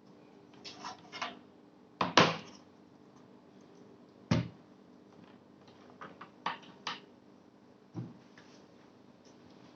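Scattered clicks and knocks of a Lenovo ThinkCentre M720q tiny PC's case and parts being handled, with two louder knocks about two and four seconds in.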